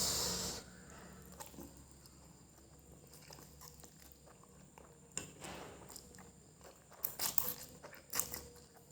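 Close-miked chewing and biting of fried noodles and crackers, with a few crunchy clusters in the second half. It opens with a short hiss.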